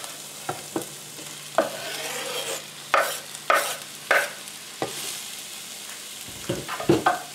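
Sliced mushrooms scraped off a wooden cutting board into a frying pan of onions and bell peppers: a string of sharp knocks and clatters from the board and the falling slices, with a cluster of knocks near the end, over a steady sizzle of the vegetables frying in olive oil.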